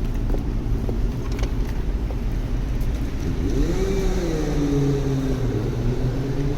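City street traffic rumbling steadily, with a few sharp clicks early on; about halfway through, a motor vehicle pulls away, its engine note rising and then settling.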